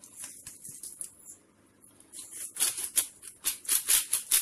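A salt shaker shaken over fish fillets: a run of quick, even shakes, about three or four a second, starting about two seconds in after a few faint taps.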